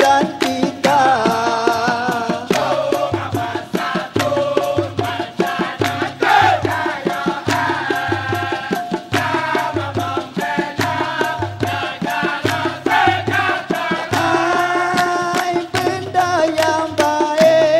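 Dikir barat music: a lead singer sings a melismatic, chant-like solo line over a fast, steady beat of rebana frame drums and maracas.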